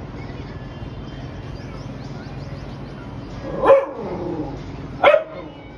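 A dog barks twice, two short loud barks about a second and a half apart in the second half, over a steady low background hum.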